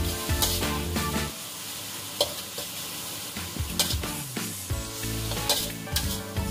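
Ground chili and spice paste sizzling as it is stir-fried in a metal wok. A metal spatula scrapes and clanks against the pan every second or two.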